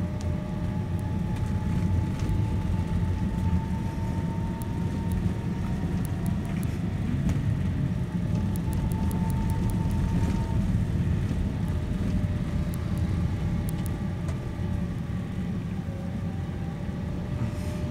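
A car driving slowly, heard from inside its cabin: a steady low engine and road rumble, with faint whining tones that drift slightly in pitch.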